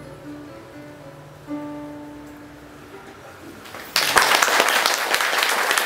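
Classical guitar playing the final notes of a piece, ending on a single plucked note about a second and a half in that rings and fades. About four seconds in, the audience breaks into applause.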